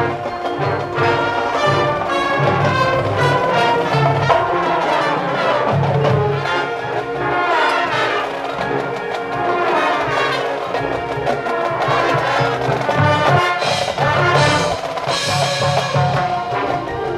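High school marching band playing: full brass sections sounding sustained chords and moving lines over percussion.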